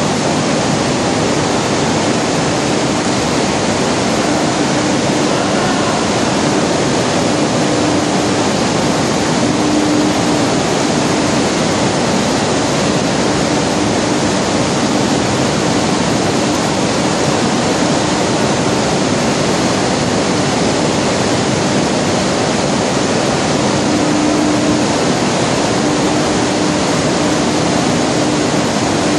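Sesame cleaning plant running: a loud, steady rush of machine noise from vibrating screen cleaners and gravity separators, with a low hum that fades in and out.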